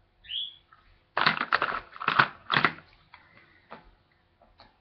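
Small plastic bait jars clattering and clicking as they are handled, with a loud quick run of sharp clicks about a second in and a few scattered clicks after. Just before it there is a brief high chirp that falls in pitch.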